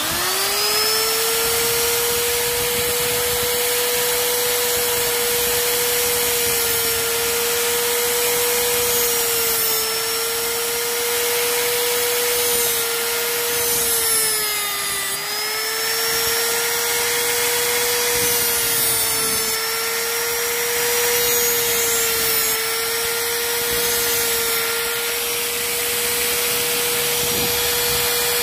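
Electric rotary tool with a small disc grinding into the worn, chewed splines of an engine sprocket shaft. It spins up with a quick rising whine at the start, then holds a steady high whine over a hissing grind, dipping in pitch a few times when the disc bites harder, most deeply about halfway through.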